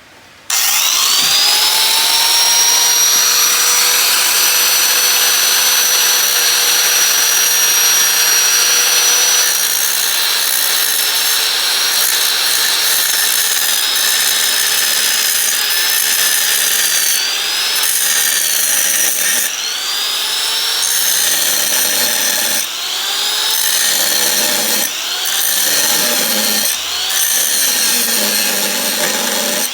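Handheld electric power tool whining up to speed, then running steadily. In the second half its pitch dips and recovers again and again as it bogs under load, working the part being opened up.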